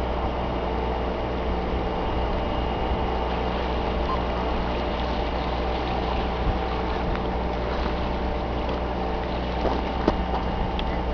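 Steady low mechanical drone with several held tones, an engine or machinery running without change, with a few faint clicks.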